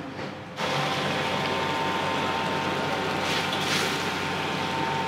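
Gas burner of a Chinese wok range lit about half a second in, then running with a steady rushing noise and a faint hum. A brief louder hiss comes a little past the middle.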